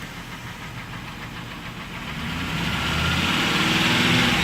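Ford Crown Victoria Police Interceptor's V8 engine running, growing louder about halfway through. The owners say the engine is knocking and misfiring.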